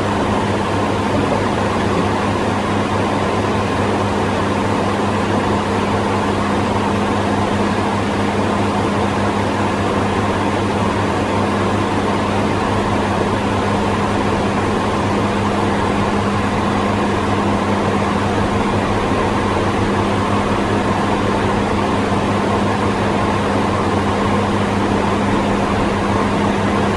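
Steady interior noise of a Hawker 900XP business jet in cruise at 35,000 feet: an even rush of airflow with a constant low hum, unchanging throughout.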